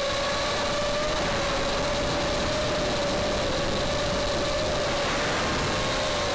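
Brushless motors and propellers of a 5-inch FPV racing quadcopter (Red Bottom 2205 2600 kV motors on Gemfan 5045 bullnose props) whining at a fairly steady pitch in flight, over a steady hiss of air. The pitch dips slightly near the end.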